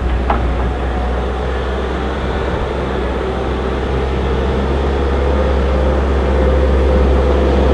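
CAT 908H compact wheel loader's diesel engine running steadily while the machine pushes snow with its bucket, a steady low hum that grows a little louder toward the end.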